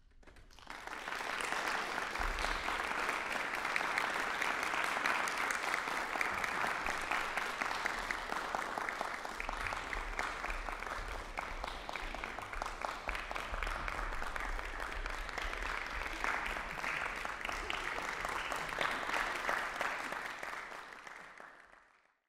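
Audience applauding, a dense steady clapping that starts about half a second in and fades out near the end.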